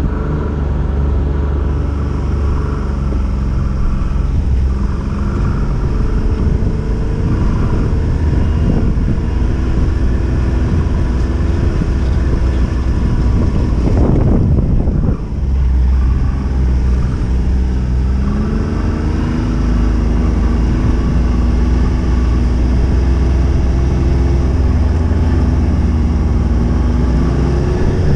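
Snowmobile engine running under way, heard from the rider's seat, its pitch shifting with the throttle. About halfway through there is a brief rush of noise and a short dip, then the engine pitch climbs steadily as the sled speeds up again.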